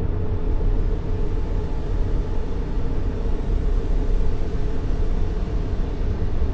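Steady sleep white noise, heavy in the bass and thinning toward the treble, with no rhythm or change.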